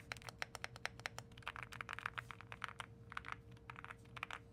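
Typing on a mechanical keyboard: a fast, uneven run of creamy key clacks, many keystrokes a second.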